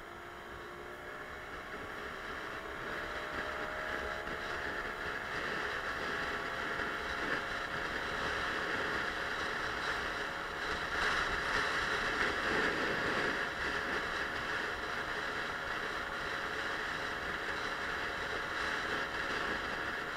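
Suzuki Let's 4 50cc scooter riding: its small engine's note rises in pitch over the first few seconds as it gathers speed, then runs steadily under wind and road noise. The wind and road noise swell for a couple of seconds around the middle.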